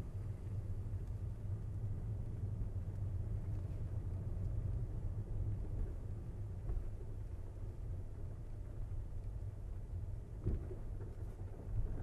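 Steady low rumble of a car driving, with one brief knock about ten and a half seconds in.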